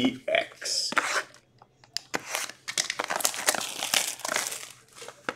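Plastic shrink wrap on a sealed trading-card box being torn and crinkled off, a run of irregular crackles.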